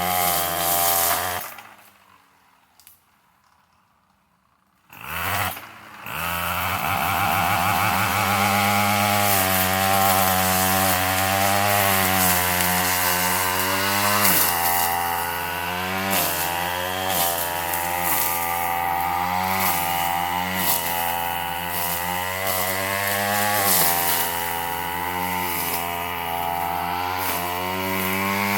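Gas weed eater (two-stroke string trimmer) with a brush-cutting blade attachment running at high revs. About a second and a half in it drops to near silence for a few seconds, then comes back revving. After that its pitch dips again and again every second or two, the engine bogging briefly as the blade bites into heavy brush.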